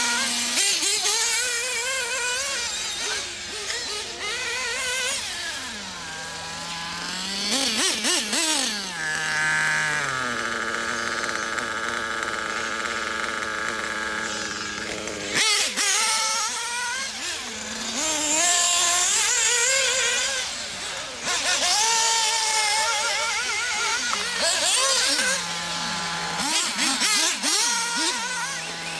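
Werks B5 two-stroke nitro engine in an RC buggy during its break-in, revving up and down as the buggy is driven, then idling steadily for about five seconds in the middle while the buggy sits stopped, before revving again. A sharp click comes as it pulls away.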